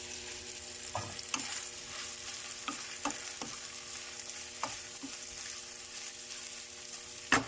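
Chicken sizzling in a frying pan while a utensil stirs it, with a series of light knocks against the pan and one sharper, louder knock near the end.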